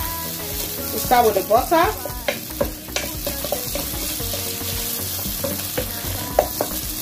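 Butter melting and sizzling in a hot frying pan as a wooden spatula pushes it around, with light scrapes and taps of the spatula against the pan. A brief wavering tone sounds a little over a second in.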